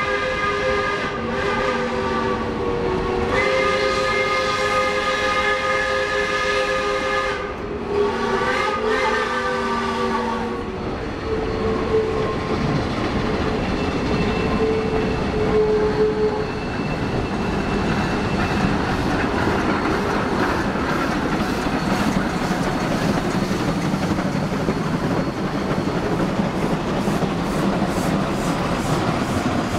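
Shay geared steam locomotive blowing its chime whistle in about four long blasts, the last one bending in pitch as it opens and closes. Then it works past under steam, the exhaust going in rapid, regular chuffs as the engine draws close.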